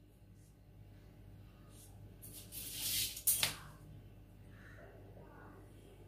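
Marker pen drawn along a metal ruler on a paper pattern sheet: one short scratchy stroke a little before halfway through, followed by a sharp tap.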